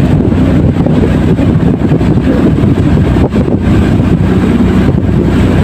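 Outrigger fishing boat's engine running steadily, a loud even drone, with wind buffeting the microphone.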